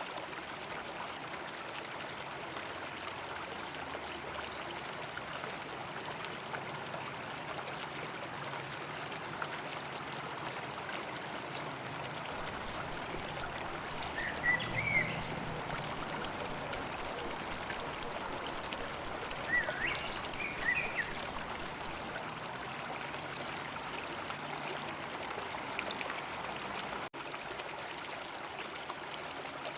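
River water flowing, a steady even rush. Two short bursts of high chirping stand out over it, about halfway through and again some five seconds later.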